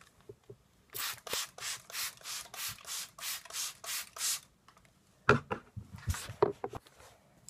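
Hairbrush raked through long hair, about eleven quick strokes at roughly three a second. Near the end come a few sharp knocks and rustles of the recording device being handled.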